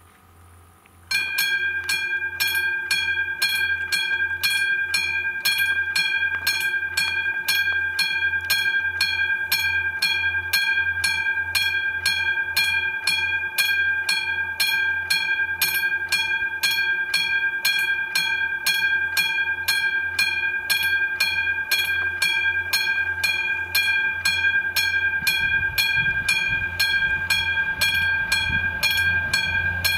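Level crossing's electronic warning bell starts about a second in and rings steadily at about two strikes a second, signalling that a train is approaching. In the last few seconds the low rumble of the approaching train grows beneath it.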